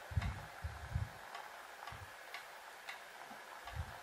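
Cow trotters in thick tomato sauce simmering in a pot: faint, irregular soft plops of bubbles bursting, with a few light ticks.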